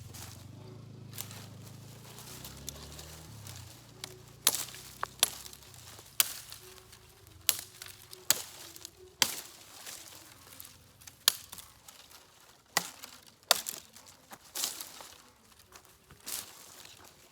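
Cold Steel Rajah II folding knife chopping into wood: a series of sharp chopping strikes, roughly one a second, starting a few seconds in.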